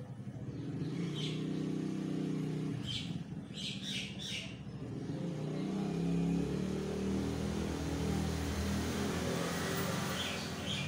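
A motor vehicle's engine running, its pitch shifting and swelling louder about halfway through, with short bird chirps about a second in, again around three to four seconds in, and near the end.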